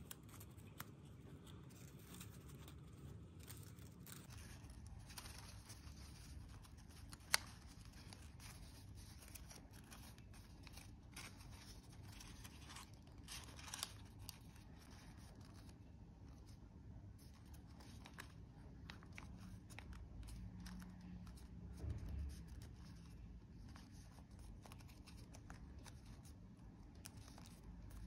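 Faint rustling and crinkling of origami paper as it is folded, creased and tucked by hand, with a few sharper crackles and one sharp tick.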